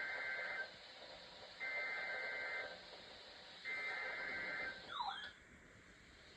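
Emergency Alert System SAME header received on NOAA Weather Radio: three one-second bursts of buzzy two-tone digital data about a second apart, the encoded header that opens a new alert. About five seconds in comes a brief warbling glide, and then the signal drops low.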